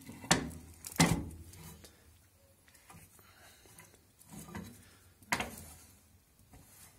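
Sharp metal clanks and knocks from the steel clamping bar of a homemade wood gasification boiler's door being handled and worked with a wrench. The loudest knock comes about a second in and another about five seconds in, with fainter rattles between.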